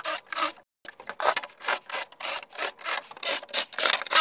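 Cordless drill with a countersink bit boring into treated pine, the cutting heard as a rapid series of short rasping strokes, about four a second, with a brief break near the start.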